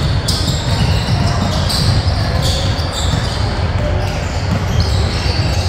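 Basketball game in a gym: sneakers squeaking on the court over and over, with a ball bouncing and voices behind.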